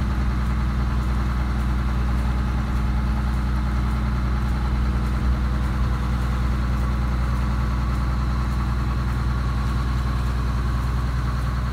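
A sailing yacht's engine running steadily while motoring, a low even drone with a steady rush of water along the hull.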